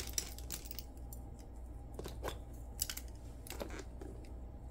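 Irregular light clicks and taps of small items, pens among them, being handled and packed into a handbag with an organizer insert.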